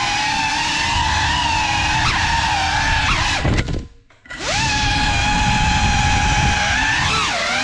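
Brushless motors and propellers of a Geprc Cinelog 35 ducted cinewhoop FPV drone whining, the pitch wavering as the throttle changes. A little past halfway the whine falls in pitch and cuts out for under a second as the throttle drops, then comes back with a rising whine.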